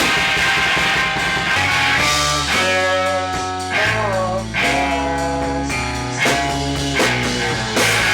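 Rock music with guitar, some notes bent in pitch, over a steady bass line.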